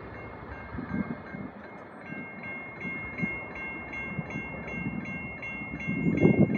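Railroad grade crossing bell ringing at about two and a half strokes a second, standing out more clearly about two seconds in, over the low rumble and thumps of a passing train that grow loudest near the end.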